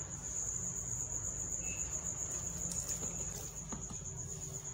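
A cricket trilling steadily in the background, an even, high, finely pulsing tone, with a few faint taps as instant coffee is spooned into a plastic bottle.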